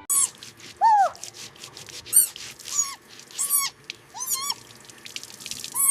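A string of about seven short, high-pitched animal squeaks, each a quick rise-and-fall chirp.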